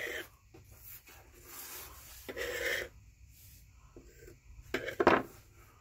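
Hands rummaging and sifting through floor sweepings of dust and small wire scraps: scratchy rubbing, then a few small clicks near the end.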